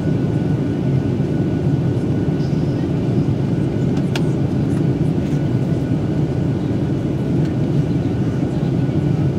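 Steady engine and airflow noise of a Boeing 737-900ER with CFM56-7B turbofans in flight, a deep even rush with a faint steady whine above it. A single click about four seconds in.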